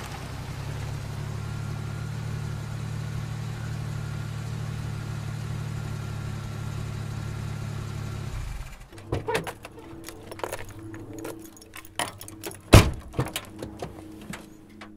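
Honda CR-V running steadily on the move for about eight seconds. The engine sound then stops, and a string of clicks and rattles follows, with one loud sharp click about three-quarters of the way through, as a rear car door is opened and someone climbs out.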